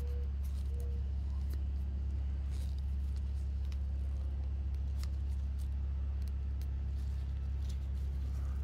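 A steady low rumble, with faint scattered scratches and clicks of a cotton swab scraping carbon fouling out of an AR-15 bolt's gas-ring grooves.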